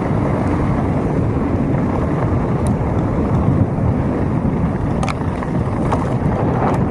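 Wind buffeting the microphone and mountain-bike tyres rolling over loose gravel at speed, a steady rumbling noise. A few short clicks come through in the second half.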